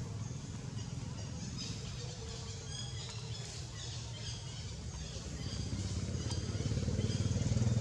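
A motor vehicle's engine runs steadily, growing louder over the last couple of seconds, while birds chirp in short high calls.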